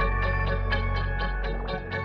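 Instrumental stretch of a rap track: a steady beat ticking about four times a second over held bass and melody notes.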